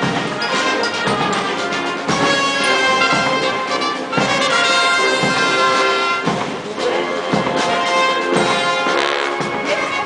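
Military band playing a march, brass instruments carrying the tune over a steady drum beat.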